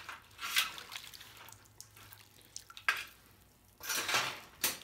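Water splashing and dripping in a metal tub of boiled wire snares, in a few short bursts: about half a second in, near three seconds, and again near the end.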